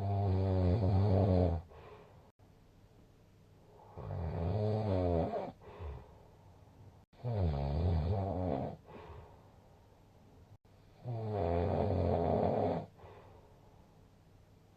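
A sleeping person snoring: four long snores about three and a half seconds apart, each a low pitched drone lasting under two seconds, with quiet breathing between.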